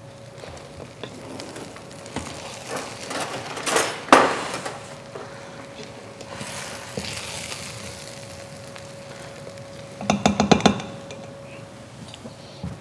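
Metal spoon stirring rice in a hot cooking pot of chicken biryani, with scattered scrapes and clinks against the pot and one louder knock about four seconds in. A quick run of about eight clinks comes just after ten seconds.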